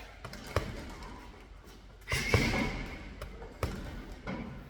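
Punches thudding into a heavy punch bag, four irregular hits, the loudest about two seconds in.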